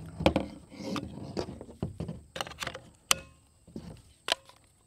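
Grand Power Stribog SP9A3 9mm carbine being reassembled by hand: a run of sharp clicks and knocks as the recoil spring goes in and the lower is fitted back onto the upper receiver. The loudest click comes about three seconds in.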